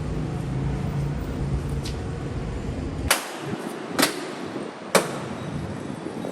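Three sharp clicks or knocks, about a second apart, over a steady low background rumble that drops away at the first one.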